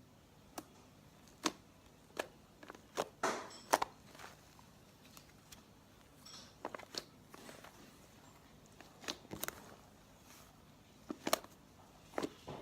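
Fluffy slime being mixed after contact solution is added to activate it: scattered, irregular soft clicks and sticky pops.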